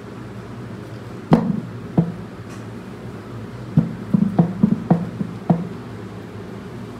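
About nine sharp knocks and thumps against a hard surface over a steady low hum. The first, about a second in, is the loudest; most of the rest come close together in the second half.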